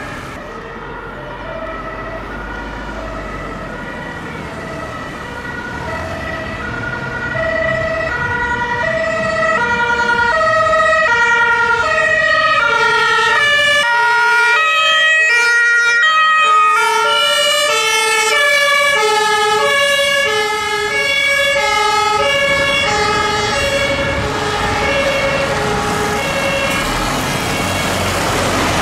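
Several German emergency vehicles passing with two-tone Martinshorn sirens sounding, the sirens overlapping out of step. They grow louder toward the middle, then fade with a slight drop in pitch as they go by.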